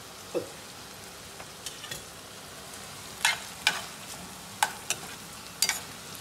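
Chicken pieces and dried red chillies sizzling in oil in a stainless steel frying pan while a metal ladle stirs them. The ladle clinks sharply against the pan several times in the second half.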